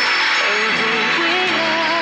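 Live pop ballad music: long melody notes held with vibrato over a steady band accompaniment, moving to a new note about a second and a half in.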